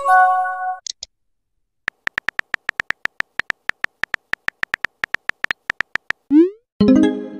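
Texting-app sound effects: a short chime of steady tones, then a long run of rapid keyboard-tap clicks, several a second, as letters are typed. Near the end a rising swoosh and a second chime mark a message being sent and arriving.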